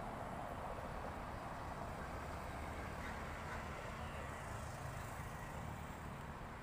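Steady hum of road traffic, an even rumble with no single vehicle standing out.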